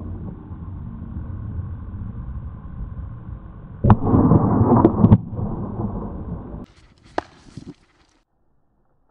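Shotgun shots fired at a wild boar herd: about four seconds in, a sudden loud report followed by a second or so of rumbling, echoing reports. A steady low rumble runs before it, and a single sharp click comes near the end.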